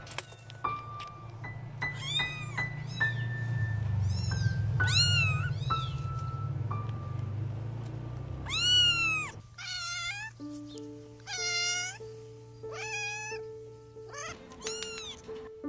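A kitten mewing repeatedly in short, high cries. After a cut about nine and a half seconds in, a cat meows several times in a lower, wavering voice. Light background music runs under the cries.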